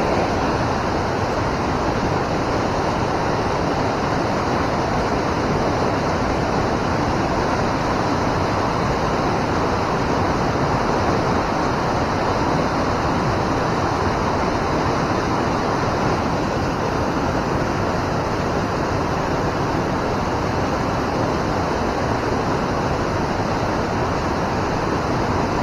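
Water pouring over a river spillway: a steady, even rush with no change.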